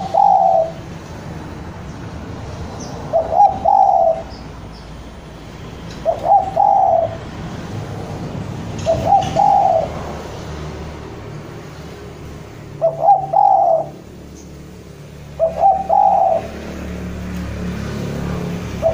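Spotted dove (derkuku) giving its song, the male's challenge call to a rival: a short two- or three-note coo phrase, repeated six times about every three seconds.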